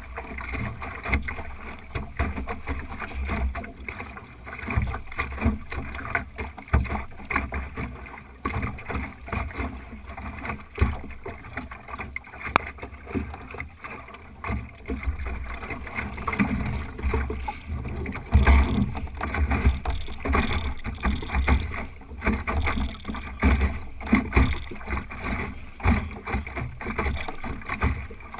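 Water slapping and rushing along the hull of an Optimist sailing dinghy under way, with irregular knocks and splashes, and gusty wind on the microphone.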